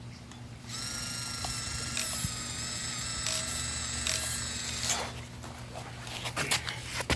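Axial SCX24 micro crawler's tiny brushless motor and gear drivetrain whining steadily under load for about four seconds, then stopping. Scattered clicks and knocks follow near the end.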